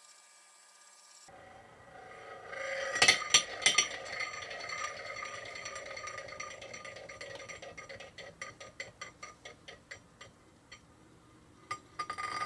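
A Wiz-z-z-er spinning top winding down on a hard surface: a few sharp knocks, then a steady rattling whir that slowly fades into a quick run of ticks as the slowing top wobbles and taps its rim, until it clatters to a stop. A few more knocks follow near the end.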